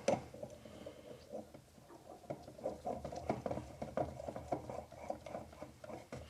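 Faint, irregular light metal clicks and rattles as the threaded steel spindle-lock part of a dividing head is screwed on by hand.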